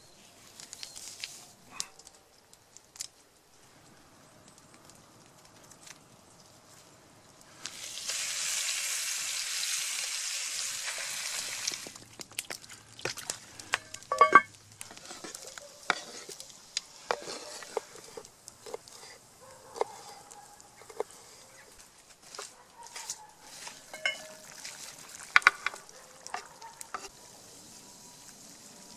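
Food sizzling hard in a hot pan over a campfire for about four seconds, then scattered clinks and knocks of a utensil against a metal pot, a few of them ringing.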